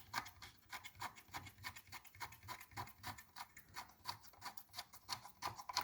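Hand ratchet clicking in a fast, even run, several clicks a second, as a bolt is backed out of the Powerglide transmission case.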